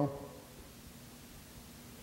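A man's voice trails off at the very start, followed by quiet room tone with a faint steady hum.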